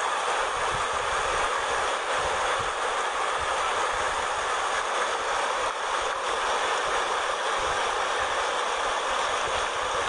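River water rushing steadily, as over a low weir, with a low irregular rumble of wind on the microphone.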